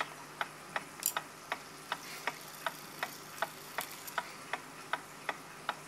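Vintage German wall clock movement ticking, its escapement beating evenly at a little under three ticks a second, with one sharper click about a second in.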